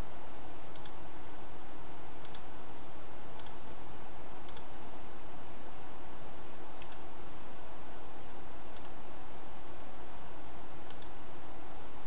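Computer mouse clicking about seven times, the clicks a second or two apart, as items in a list are selected one after another. The clicks sit over a steady hiss of microphone noise.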